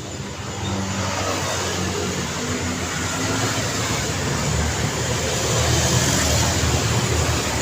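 Street traffic: a car passes, its engine and tyre noise growing louder about a second in and loudest a little past the middle before easing slightly.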